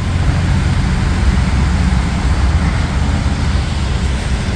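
Steady low vehicle rumble with an even hiss over it: engine and road-traffic noise.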